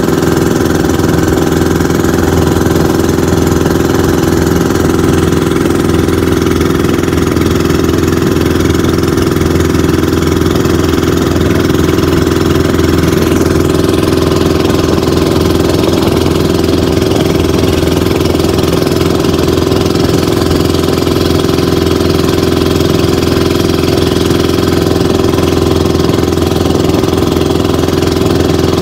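Engine of a Philippine outrigger motorboat (bangka) running steadily at cruising speed, with wind and rushing water over it.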